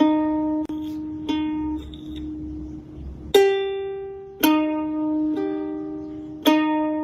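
Music: a slow melody on a plucked string instrument, single notes struck one at a time and left to ring out.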